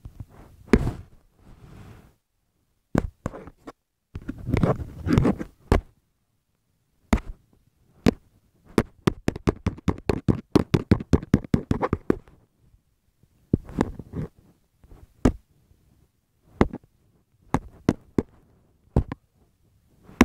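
Irregular sharp knocks and taps, with a stretch of rustling about four to six seconds in and a quick run of taps at about five a second near the middle.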